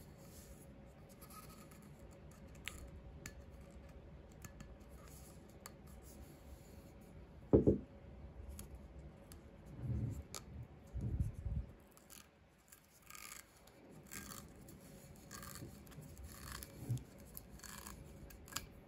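Plastic seal and stopper of a whisky bottle being handled and peeled open: small clicks and scratchy rustles, a sharp thump about seven and a half seconds in, and duller bumps a couple of seconds later. Near the end, scratchy strokes as the clear plastic tear strip is pulled off the stopper.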